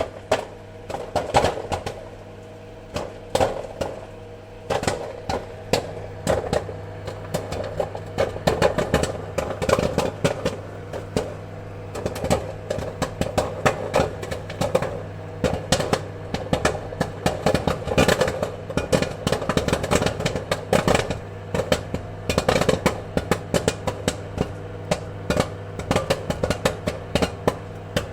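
Popcorn kernels popping in quick, irregular pops, sparse at first and coming closer together from about eight seconds in, over a steady hum.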